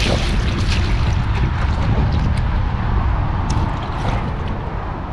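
Steady low wind rumble on the microphone, with a few short water splashes as a hooked chain pickerel thrashes at the side of the kayak.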